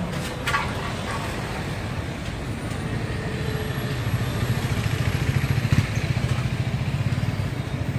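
A small engine running with a steady low throb that grows louder from about three seconds in. There is a brief clatter about half a second in.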